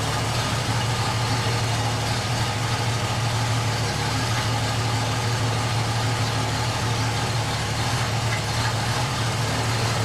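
Ford 200 cubic-inch straight-six idling steadily at about 770–800 rpm on throttle-body fuel injection, run at idle during a spray test for a vacuum leak.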